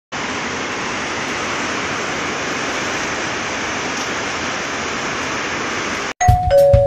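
Heavy rain pouring in a windstorm, an even rushing noise with no gusts or breaks. About six seconds in it cuts off abruptly, and music begins: a drum beat with ringing chime notes.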